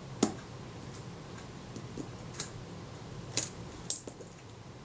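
Small, sharp metal clicks, four or five spread over a few seconds, from a Kodak Retina IIIc's Synchro-Compur leaf shutter and a jeweller's screwdriver as the shutter is cocked by hand.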